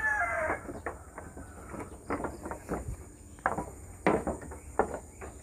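A rooster's crow trailing off in the first half second, followed by faint, scattered short taps and scuffs.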